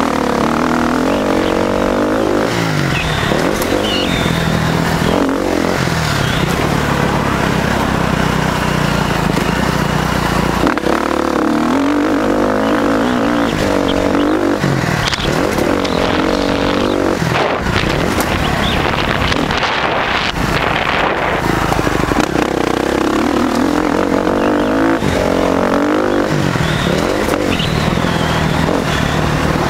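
KTM 350 SX-F's single-cylinder four-stroke engine heard from onboard the dirt bike while it is ridden, revving up and dropping back over and over as the throttle opens and closes.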